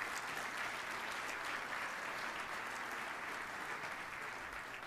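Audience applauding steadily, easing off a little near the end.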